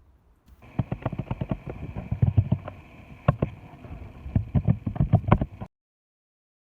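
Foley effect: a rapid, irregular clatter of sharp knocks and low thumps over a steady hiss, starting about half a second in and cutting off abruptly after about five seconds.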